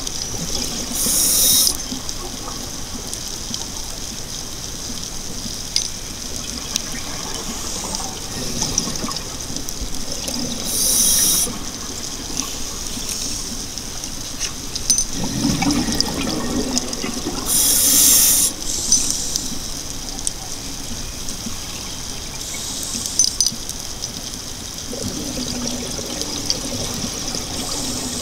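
Scuba diver breathing through a regulator underwater: three gurgling bursts of exhaled bubbles, each about a second long and several seconds apart, over a steady underwater hiss.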